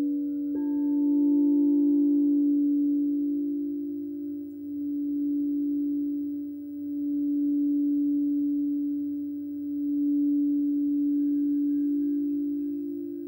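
Frosted crystal singing bowls ringing: one bowl sustains a long, steady low tone that swells and fades in slow waves about every three seconds. About half a second in, a soft strike on another bowl adds a higher note that dies away over a couple of seconds.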